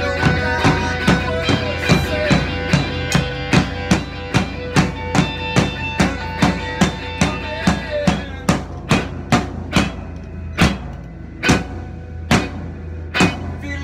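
Drum kit played to a steady rock beat together with an electric guitar. About eight seconds in the guitar and other held tones thin out, leaving the drum hits standing out on their own.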